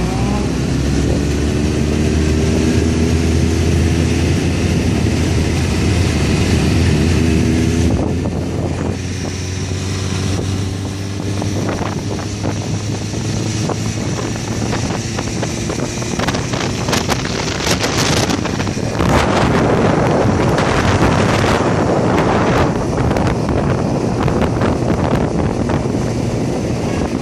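Motorcycle engine running while riding, its pitch rising and falling with the throttle. Wind rushes over the microphone, turning gusty and heavier about halfway through and partly covering the engine.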